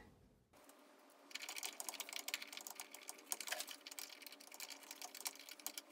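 Faint run of small, irregular clicks and taps from a metal L-bracket, its screw and the aluminium scale of a digital router readout being handled and fitted by hand. It starts about a second in.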